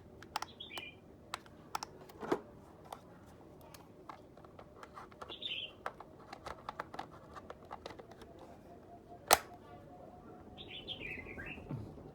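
Scattered light clicks and taps, with one sharp click about nine seconds in, while a small bird chirps briefly three times.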